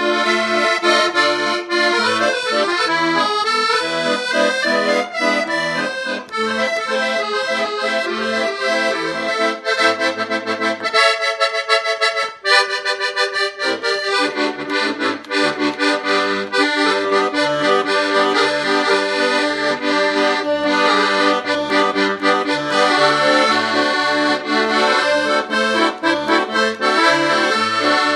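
Accordion playing a lively tune: a moving melody on the treble side over a regular pattern of alternating bass notes. The bass drops out for a moment near the middle while a higher run plays alone.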